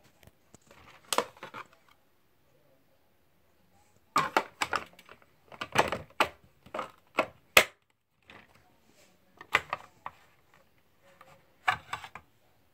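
Sharp clicks and knocks of wooden pencils and a pencil sharpener being handled on a wooden desk, in four short clusters, the busiest about four to eight seconds in.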